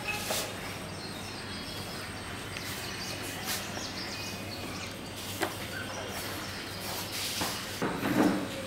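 A wide mounting brush swishes in strokes across a paste-soaked sheet of paper, over a steady background hum. The strokes are loudest in a cluster near the end, as it presses out air bubbles from the center.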